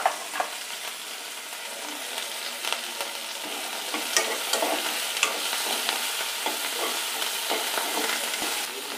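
Chopped onion, tomato, coriander and curry leaves sizzling in hot oil in a nonstick kadai, stirred with a metal spatula that scrapes and taps against the pan now and then.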